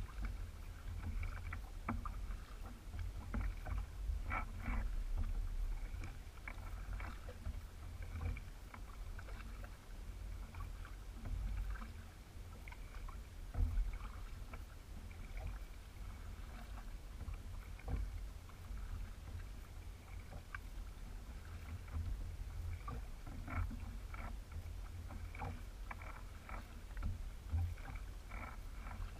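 Kayak paddling on calm water: the blades dip and drip in short, irregular splashes, over a steady low rumble.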